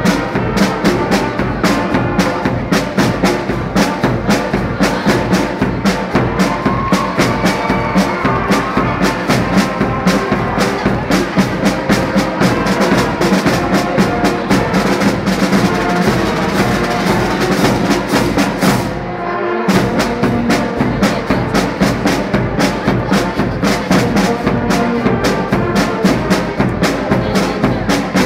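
Brass-and-drum march music with a steady beat, breaking off briefly about two-thirds of the way through before carrying on.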